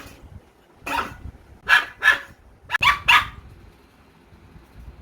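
German Shepherd puppy barking: about six short, high-pitched barks in quick succession, stopping a little past the middle.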